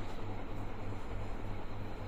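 Steady low hum under an even hiss, with no distinct event standing out.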